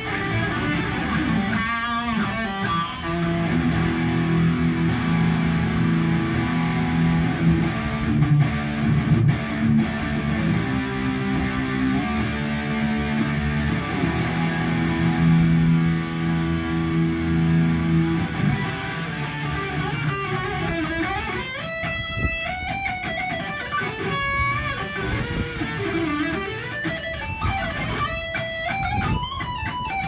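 Ibanez electric guitar with a newly fitted pickup, played with a fierce tone. It plays sustained low chords for about the first eighteen seconds, then single-note lead lines with bends and vibrato.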